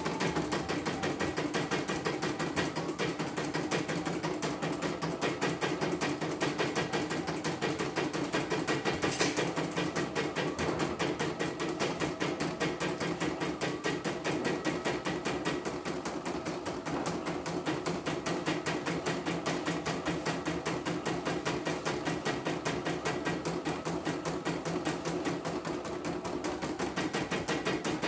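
CNY portable embroidery machine stitching in a fast, even rhythm of needle strokes while its hoop carries the fabric, on a test run after its power supply was replaced. A single sharp click about nine seconds in.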